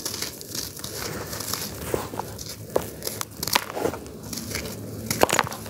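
Hands squeezing and crumbling grainy charcoal lumps in a plastic tub: a steady run of gritty crunching and crackling, dotted with sharp clicks of grit.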